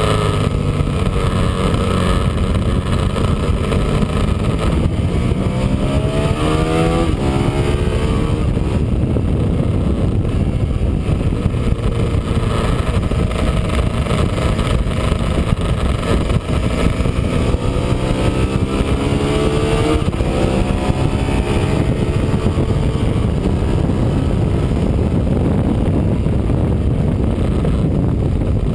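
Sport motorcycle at speed on a race track, heard from a camera mounted behind the windscreen: the engine runs hard under a steady rush of wind noise. The engine pitch climbs twice as the bike accelerates, around six seconds in and again around eighteen seconds in.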